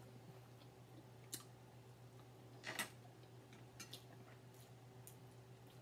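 Near silence over a steady low electrical hum, broken by a few faint clicks and one brief rustle a little under halfway: the small sounds of eating, chewing and a fork against food and a container.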